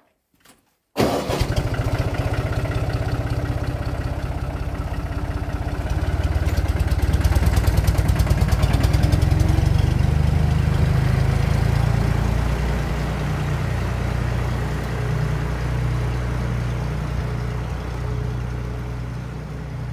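Small tractor engine starting about a second in and running with a rapid, steady chug as the tractor pulls a loaded trailer away. It swells for a few seconds, then slowly fades as the tractor drives off.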